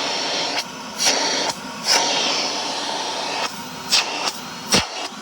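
A Shark Navigator Lift-Away Professional (NV391) upright vacuum cleaner running, pulling air through its hose to show its suction. The level shifts up and down, with a few short sharp surges.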